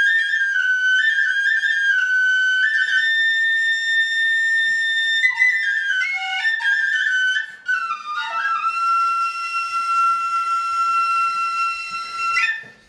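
Albanian fyell, an end-blown shepherd's flute, playing a pastoral dance tune (valle baritore): a single melody moving in quick steps between notes, a brief break about seven and a half seconds in, then one long held lower note that stops near the end.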